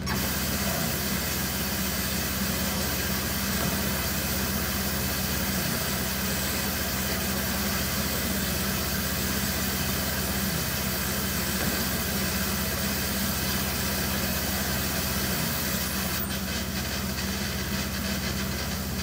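Steady electronic noise drone from the performer's computer over the PA: a low hum with a constant hiss on top.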